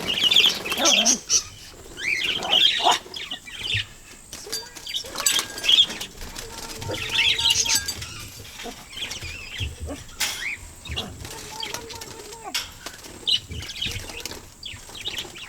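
A flock of young parakeets chirping in short bursts, with wings flapping now and then.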